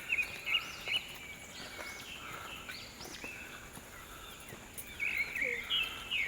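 Birds calling: a run of short chirps and quick rising-and-falling whistles, busiest near the start and again near the end.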